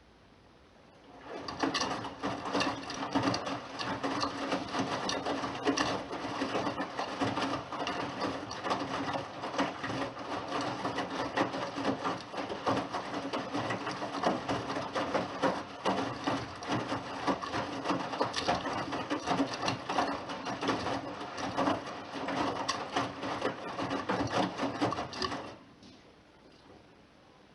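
Bosch Serie 6 front-loading washing machine turning its drum in the wash phase: a steady motor hum under the busy knocking and splashing of wet laundry tumbling. It starts about a second in and stops a couple of seconds before the end, as the drum pauses between turns.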